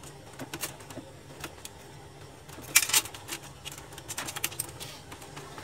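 Scattered clicks and light knocks of plastic and metal laser-printer parts being handled during disassembly, with a sharper cluster of clatter about three seconds in.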